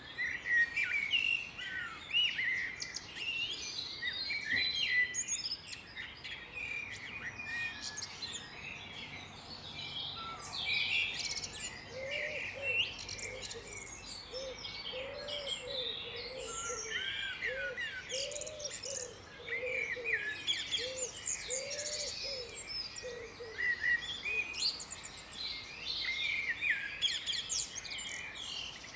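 Chorus of several songbirds chirping and singing over one another. Through the middle stretch a lower call repeats about a dozen times in short arched notes.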